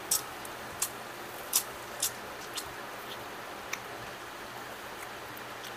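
Sharp clicks and smacks of a person eating crab by hand, cracking and sucking the shell, a few times a second through the first four seconds and loudest about a second and a half in. Under them runs the steady hum of an electric fan.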